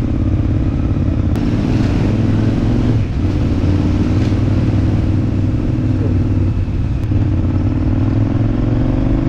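KTM 990 Adventure's V-twin engine pulling away, its pitch climbing in each gear and dropping back at each upshift, about three times over, with wind and road noise.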